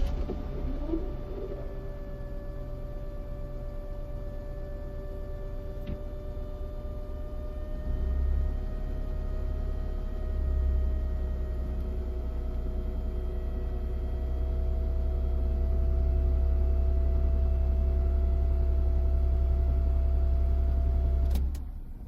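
Electric fuel pump of a BMW E39 Touring whining steadily, its pitch creeping slowly upward, over a low rumble that grows louder in steps. Both cut off about 21 seconds in.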